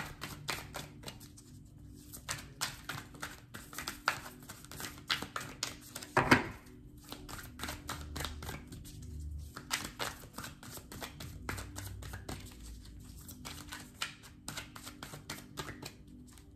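A deck of tarot/oracle cards being shuffled and handled: a dense run of quick papery clicks and slaps, with one louder thump about six seconds in. Faint background music runs underneath.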